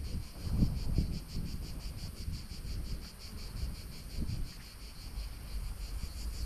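Cicadas chirring in rapid, even pulses, with gusts of wind buffeting the microphone.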